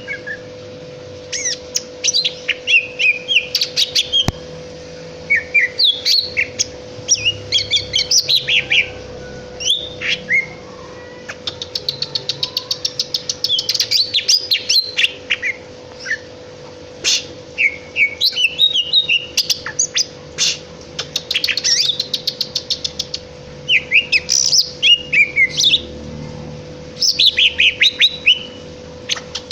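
Cucak ijo (green leafbird) singing a varied song: quick whistled notes sliding up and down, broken by fast chattering runs of many notes a second.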